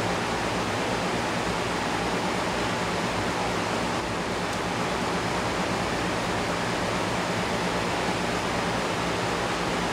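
A steady, even hiss with a faint low hum throughout; no distinct knocks or handling sounds stand out.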